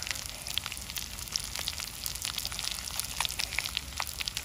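Grilled fish on a stone cooking slab crackling and sizzling, with irregular sharp crackles as the crisp fish is pulled apart by hand.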